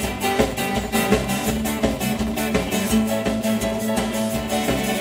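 Live band playing an instrumental passage: drum kit keeping a steady beat under electric guitars and bass, with no vocals.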